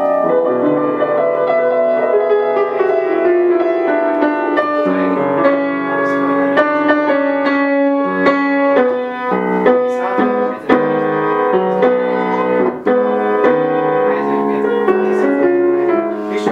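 Upright piano being played: a steady, unbroken stream of chords and melody notes.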